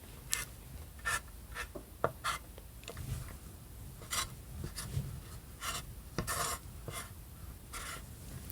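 Close-miked eating: a run of short, irregular scrapes and crunchy mouth noises, about one or two a second, with no talking.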